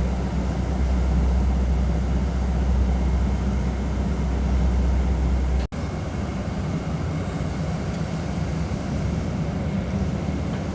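Heavy road-construction machinery running steadily with a deep engine rumble. About six seconds in, the sound cuts abruptly to a similar steady machine noise without the deep rumble.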